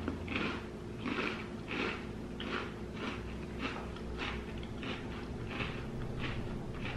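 Crunchy Oreo sandwich cookie being chewed close to the microphone: a steady run of dry crunches, about two a second.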